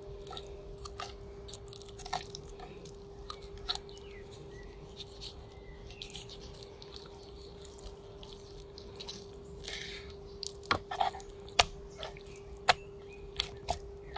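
Morakniv Companion knife cutting and deboning raw chicken thighs on a wooden cutting board: scattered small wet clicks and snicks of the blade through meat and tendon, with sharper, louder taps of the blade against the board in the last few seconds. A steady faint hum runs underneath.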